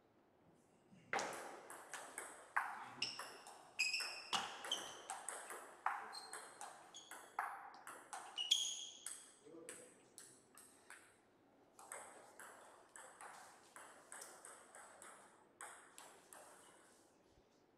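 Table tennis ball clicking back and forth between paddles and table in a fast rally, with a few short high squeaks during the rally. After a brief pause about eleven seconds in, a second run of lighter ball taps follows.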